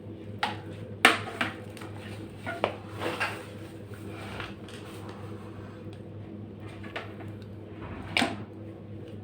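Several sharp clacks and clatters, as hard objects are handled, over a steady low electrical hum; a cluster of clacks comes in the first few seconds and a louder one near the end.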